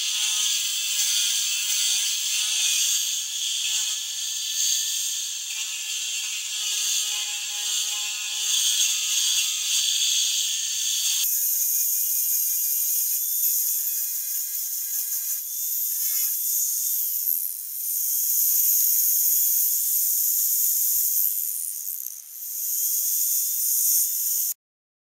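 Hand-held electric sander whining as it sands a plywood canoe hull, its pitch dipping and recovering as it bears on the wood. The sound changes abruptly about halfway through and cuts off suddenly near the end.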